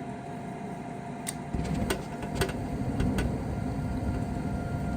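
Gas furnace starting up: a low steady motor rumble comes on about a second and a half in, with a few sharp clicks around it, under a steady hum.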